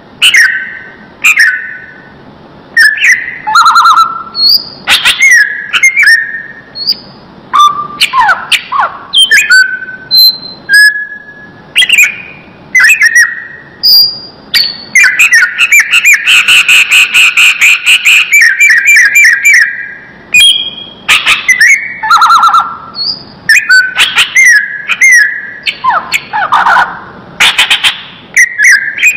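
Cucak ijo (greater green leafbird) singing a loud, varied song of whistled phrases and chirps, with a long, rapid trill about halfway through.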